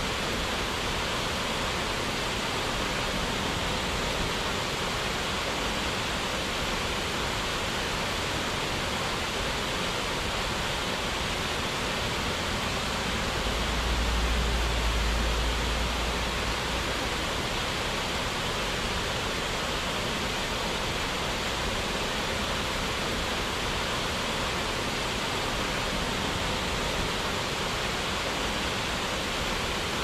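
Rushing, falling water, a steady dense hiss without a break. A low rumble swells briefly about halfway through.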